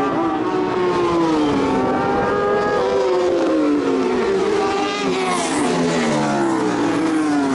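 Loud racing motorcycle and sidecar engines passing at speed, one after another, each engine note dropping in pitch as it goes by. About five seconds in, one engine revs up and then falls away.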